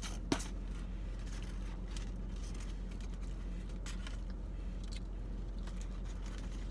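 Steady low hum inside a car cabin, with soft rustles and light clicks from takeout food packaging being handled; one sharp click comes about a third of a second in.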